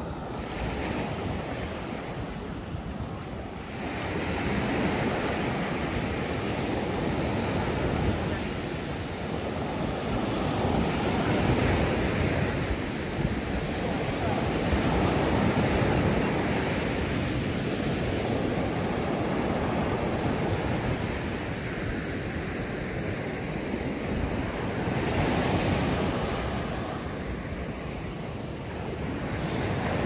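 Surf washing onto a sandy beach, the noise swelling and easing every several seconds as waves break, with wind buffeting the microphone.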